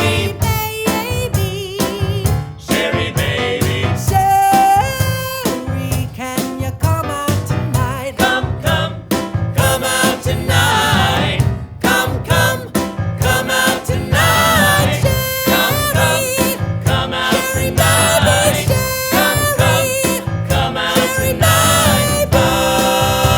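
Male vocal group singing a 1960s-style pop song over a band with a steady beat.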